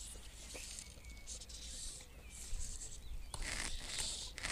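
Wind rumbling on the microphone at the lake's edge, with a few short hissing rustles near the end.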